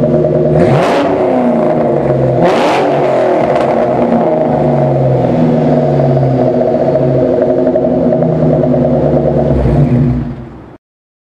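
2003 Mustang SVT Cobra's supercharged 4.6-litre V8 idling through a MAC 3-inch cat-back exhaust, with two quick throttle blips about one and two and a half seconds in. The sound cuts off suddenly near the end.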